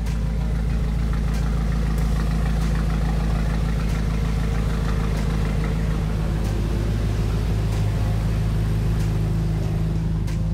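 2014 BMW M5's twin-turbo V8 idling steadily.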